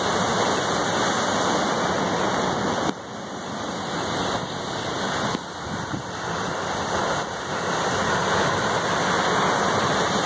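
Rough ocean surf breaking and foaming over jetty boulders: a continuous loud rush of water. It drops suddenly about three seconds in and again a little after five seconds, then builds back up.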